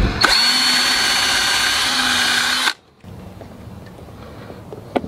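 Power drill running steadily for about two and a half seconds, boring a hole for an eye bolt in a window sill, then stopping abruptly. Quiet handling follows, with a light click near the end.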